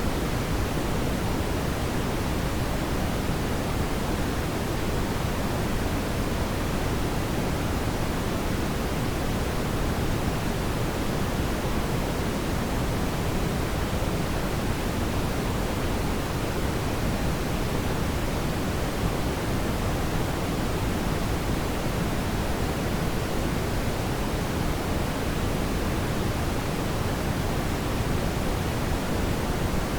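Brown noise: a steady, even hiss weighted toward the low end, with no change throughout.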